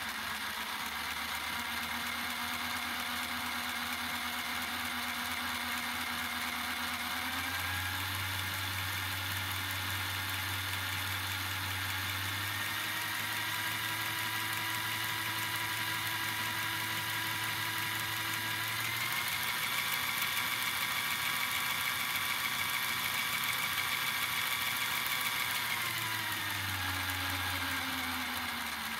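LEGO locomotive model's electric motor and gear train running its wheels and connecting rods in place, a steady whine with a low hum. The pitch steps up three times, about 7, 12 and 19 seconds in, as the speed is raised, then slides back down near the end as it slows.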